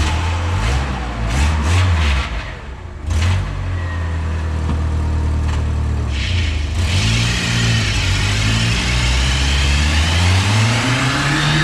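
1987 Pontiac Acadian's engine revving through a loud exhaust leak just before the catalytic converter. A few quick blips of the throttle in the first three seconds, then a long held rev from about the middle, climbing in pitch toward the end.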